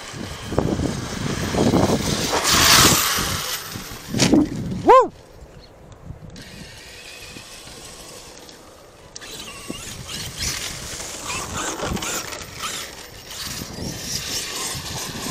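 Arrma Kraton 8S electric RC truck being driven hard: a short whine from its brushless motor rises and falls about five seconds in, then cuts off suddenly. Driving noise starts again from about ten seconds in.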